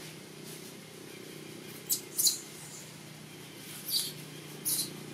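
Four short, high-pitched animal squeaks: two close together about two seconds in, and two more near the end, over a steady low hum.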